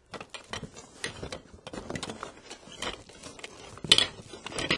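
Irregular metallic clicking and clattering of metal refrigerator casters and their hardware being handled, with one sharper knock about four seconds in.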